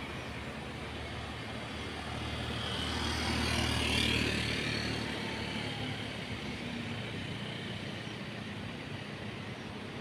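Street traffic noise, with a motor vehicle passing close by: it grows louder to a peak about four seconds in, then fades back into the steady background hum.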